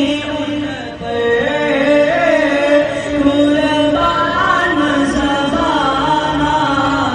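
A young male voice chanting a naat, a devotional poem in praise of the Prophet, in long held notes that waver and glide between pitches.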